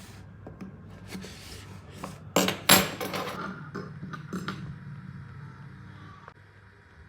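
Small hard objects clicking and rubbing as they are handled, with two sharp clacks about two and a half seconds in.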